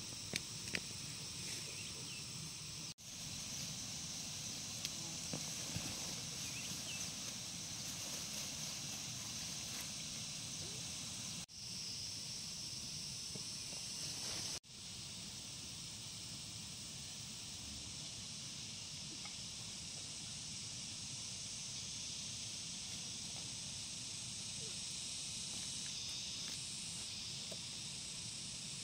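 A steady, high-pitched chorus of insects over a low rumble, with a few light clicks near the start. The sound breaks off for a moment three times.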